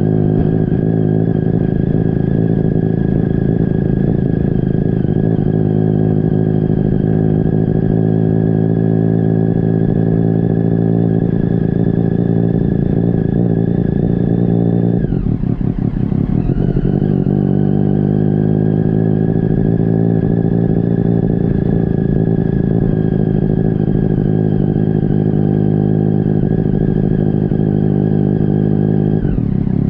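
Motorcycle engine running steadily at low speed, heard close up from a camera mounted on the bike. About halfway through its pitch drops sharply, then climbs back up over a couple of seconds. It drops again near the end.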